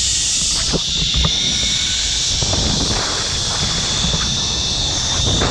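Zipline trolley pulleys running fast along the steel cable with a steady high whir, over wind buffeting the microphone.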